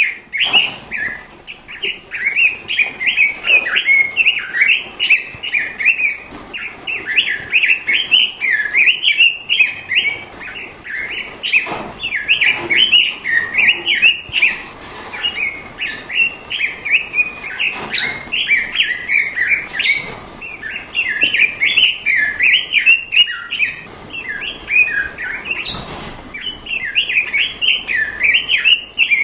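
Straw-headed bulbul (cucak rawa) singing a continuous, rapid bubbling warble of quick rising and falling notes, with a few faint clicks in between.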